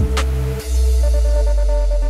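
Electronic outro music: a last drum hit that drops in pitch, then, about half a second in, a deep held bass note under steady synth tones.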